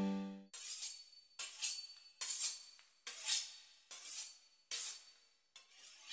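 A held music chord stops about half a second in. Then comes a run of about seven short, crisp strokes roughly every 0.8 seconds: a knife slicing through the pastry crust of a beef Wellington.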